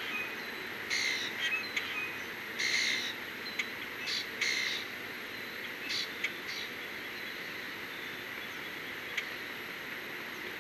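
Harsh, hoarse bird calls in short bursts, a handful in the first half, with a few sharp clicks between them, over a steady background hiss.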